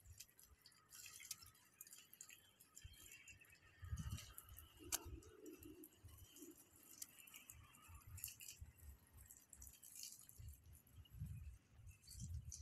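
Near silence: faint quiet-street ambience with soft, irregular low thuds and one sharp click about five seconds in.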